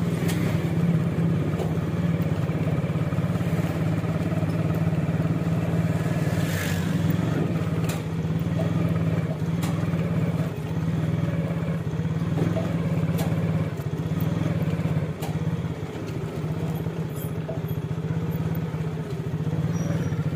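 Street traffic, with a motor vehicle's engine running in a steady low drone and a few light clicks over it.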